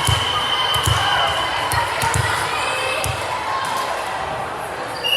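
A ball bounced on a gym floor, a thud about once a second for the first few seconds, over the steady chatter of spectators in a large echoing hall.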